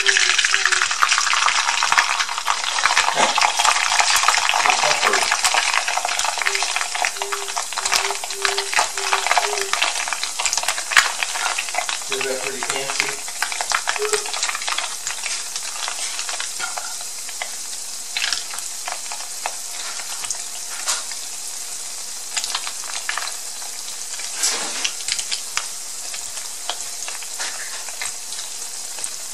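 Flaked tilapia deep-frying in hot vegetable oil in a wok, a dense crackling sizzle with sharp pops while it is stirred. It is loudest as the fish goes into the oil and dies down gradually over the following seconds.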